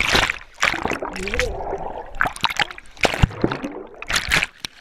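Sea water splashing over an action camera as it is dunked in and out of the surf: a run of sharp splashes, with muffled stretches while the camera is under the water.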